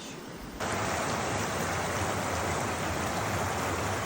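River water rushing steadily, its noise coming in suddenly about half a second in.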